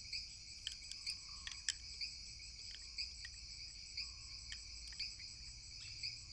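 Faint, steady chirping of crickets, with a few light clicks of chopsticks against bowls.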